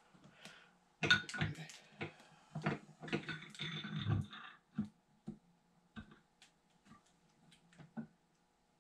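Parts of a resin 3D printer being handled and fitted together by hand: clicks, knocks and rustling, busiest from about a second in to past the middle, then a few scattered light clicks.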